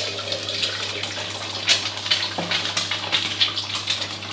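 A chicken egg frying in very hot oil in a wok: a loud, steady sizzle with scattered pops and crackles as the white bubbles and sets.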